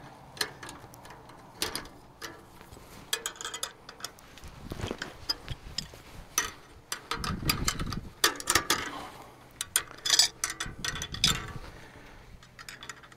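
Pliers working fencing wire, bending and folding the cut ends of a tied-off wire down at the post: irregular metallic clicks, ticks and scrapes.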